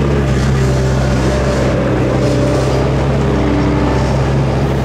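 Engine of a small construction machine running steadily close by, a constant low drone with a few faint shifting tones above it.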